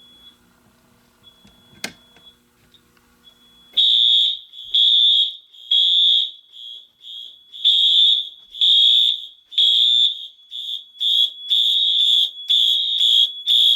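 Wheelock fire alarm horns sound after a magnet test trips a smoke/heat detector into alarm. A single click and a faint hum come first. About four seconds in, a loud, high horn tone starts, sounding in repeated pulses of about half a second to a second with short gaps.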